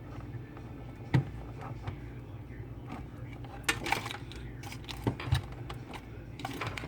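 Scattered sharp clicks and short rattles of plastic plugs and cords being handled and plugged in, over a steady low hum.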